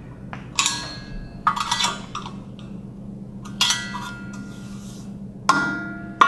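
Stainless steel sheet-metal chip-tray cover of a Tormach PCNC 440 being handled and set in place: several sharp metallic clanks, about one every second or two, each ringing briefly.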